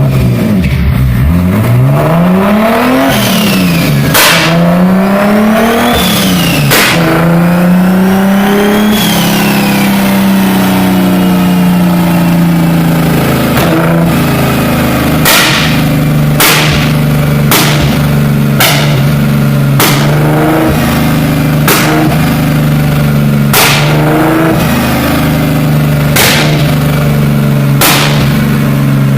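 Turbocharged Nissan RB26DETT straight-six in a Silvia S14 revved up and down several times, then held at steady high revs with loud exhaust bangs about every second or so: backfiring from a misfire.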